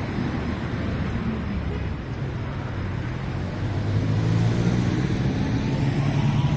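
Street traffic: motor vehicle engines running with a low hum, one growing louder about four seconds in.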